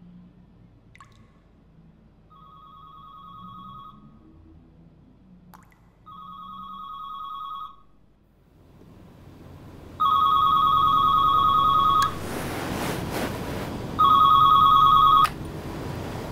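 White corded landline telephone ringing with an electronic trilling ring: four rings about four seconds apart, the first two faint and the last two loud. Between the later rings there is a steady rushing hiss.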